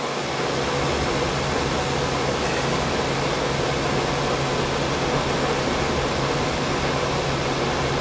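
Induced-draft gas furnace running with its burners lit and fans turning, heard as a steady fan-and-burner noise with a low hum.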